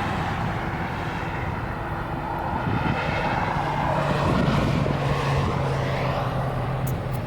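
A steady engine drone that swells a little around the middle, with a low hum coming in partway through.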